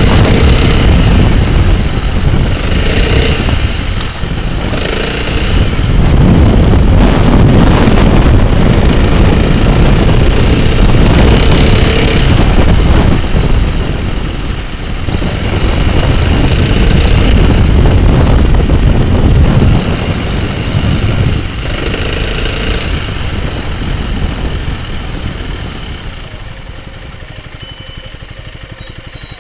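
Piaggio MP3 three-wheeled scooter riding along a road, heard from beneath its front end: heavy wind buffeting and tyre rumble over its running engine. It grows quieter near the end as the scooter slows.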